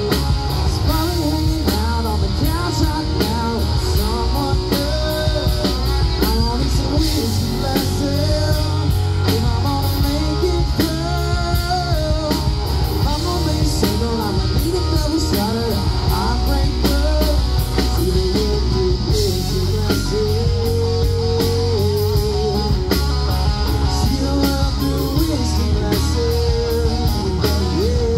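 Live rock band playing amplified: a male voice singing over electric guitars, bass and a drum kit, with a steady beat and heavy bass.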